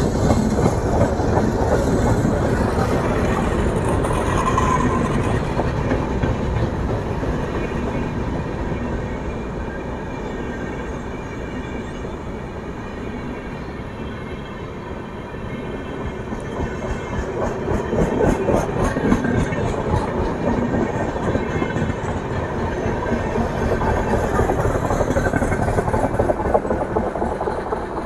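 Hatia–SMVT Bengaluru Superfast Express, a rake of LHB coaches, passing through at speed: a loud, continuous rumble of wheels on rails with clickety-clack over the rail joints. It eases a little partway through, then swells again with quick runs of clicks.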